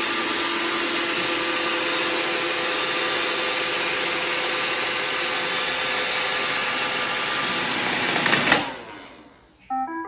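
iRobot Roomba robot vacuum running, a steady whir of its motor and brushes, which cuts off suddenly about three-quarters of the way in. A short run of rising electronic beeps follows near the end.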